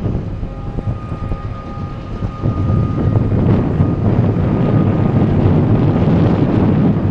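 Wind buffeting the microphone, giving a heavy, uneven low rumble, with a faint thin steady tone in the background.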